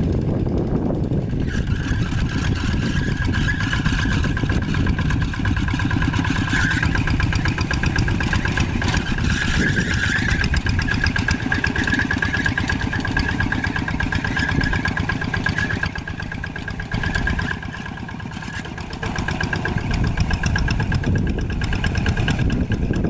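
Old tractor engine running steadily with rapid, even firing pulses; it drops in level about sixteen seconds in and comes back up about three seconds later.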